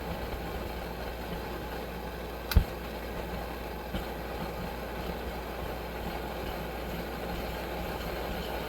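Coleman 523 two-burner gasoline stove running with a steady roar from its lit burners, which the owner suspects of a generator that isn't feeding fuel quite right. A single sharp knock comes about two and a half seconds in.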